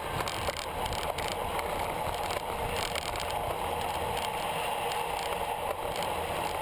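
Steady rush of wind and road noise from a road bicycle riding at racing speed in a pack, with wind buffeting the bike-mounted camera's microphone.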